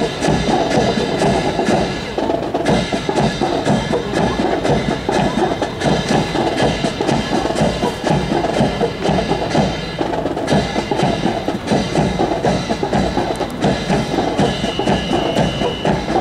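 Marching drum cadence from a military band's drum line, snare and bass drums keeping a rapid, steady rhythm. A brief high steady tone sounds near the end.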